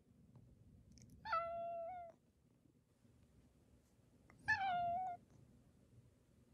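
Tabby cat meowing twice, about three seconds apart, each meow short and held at a steady pitch: attention-seeking meows, begging for affection.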